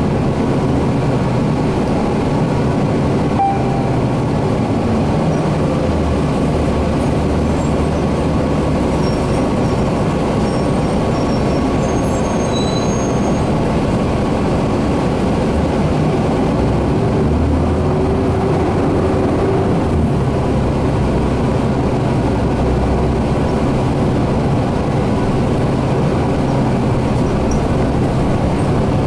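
Inside a moving 2010 Orion VII NG city bus: steady engine drone and road noise, with the engine note shifting slightly as the bus drives on.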